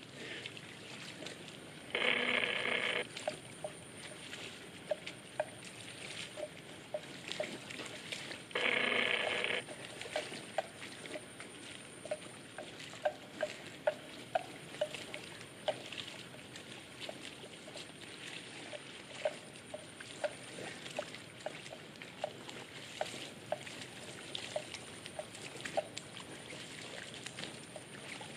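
Water buffalo grazing and wading in flooded grass: irregular short ticks and soft wet sounds as they crop grass and move through shallow water. Twice, about 2 s and 9 s in, a loud buzzing tone lasts about a second.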